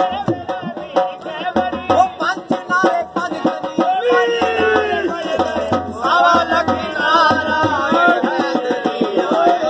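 Qalandari dhamal music: fast, driving drum beats, with a melody line that bends up and down over the drumming from about four seconds in.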